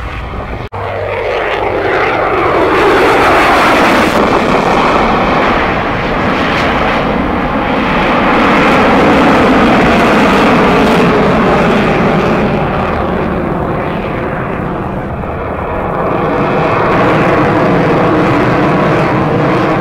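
Lockheed Martin F-22 Raptor's twin Pratt & Whitney F119 turbofan engines, loud and continuous as the jet flies an airshow demo pass, with the pitch falling as it goes by. The sound drops out for an instant just under a second in.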